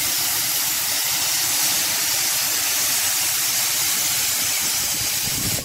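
Narrow-gauge steam locomotive blowing off steam: a loud, steady hiss that stops abruptly near the end.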